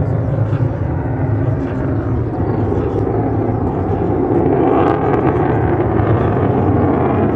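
Jet noise from an F-35B Lightning II's single F135 afterburning turbofan engine as the fighter flies overhead: a loud, steady rumble that grows a little louder about halfway through.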